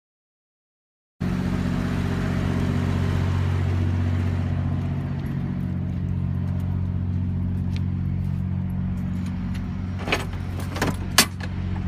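Steady low hum of an idling vehicle engine, heard from inside a car, starting about a second in. Near the end come a few sharp clicks and knocks.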